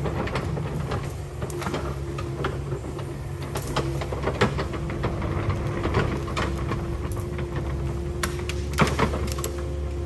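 Kubota 080 mini excavator's diesel engine running steadily under work, with a steady whine over it and repeated sharp clanks and knocks of the machine working.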